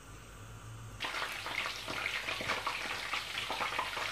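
Whole mini aubergines deep-frying in a pot of hot oil: dense sizzling and crackling that starts suddenly about a second in.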